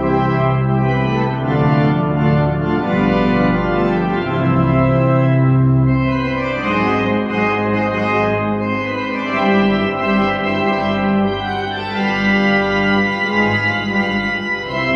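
Church organ playing slow sustained chords over long held bass notes, the chords changing every second or few.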